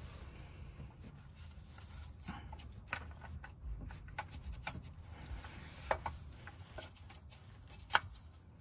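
Light metal clicks and scrapes as a clutch pressure plate with its disc is worked by hand over the alignment tool onto the flywheel, with a sharper click near the end as it slides in onto the pilot bearing.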